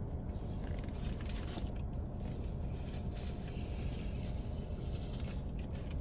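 Steady low hum of a car engine idling, heard from inside the cabin, with faint rustles and small clicks of someone eating a salad.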